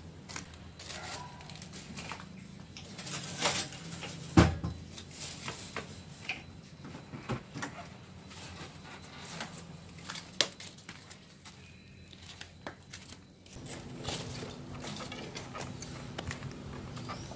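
Footsteps in flip-flops over rubble and dry twigs: scattered crackles, crunches and knocks, with a sharper knock about four seconds in.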